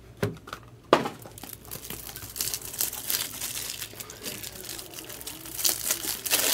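Plastic wrapping crinkling and tearing as trading-card packaging is opened by hand, with a sharp snap about a second in.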